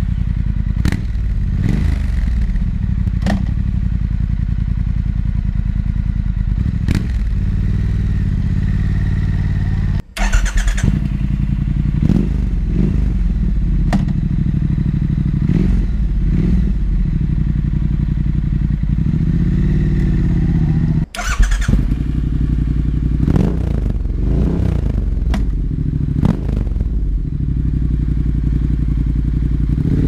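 Triumph Thruxton 1200 R's parallel-twin engine idling and revved in short blips while standing still, first through its stock mufflers, then, after a cut about ten seconds in, through a British Customs GP aftermarket exhaust. The sound drops out briefly at each cut, about ten and twenty seconds in, and the later part is the GP exhaust in its Total Performance Package setup.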